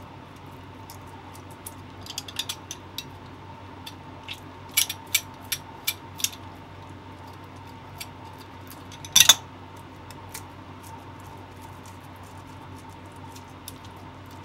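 Wet clicks and smacks of fingers working wet mirugai clam meat during cleaning. They are scattered, with a run of louder ones about five to six seconds in and the loudest smack about nine seconds in, over a steady faint hum.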